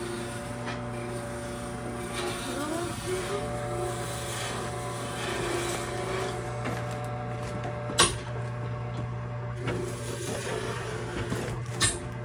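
A steady electric motor hum, with rubbing and scraping noises over it and two sharp knocks, one about eight seconds in and one near the end.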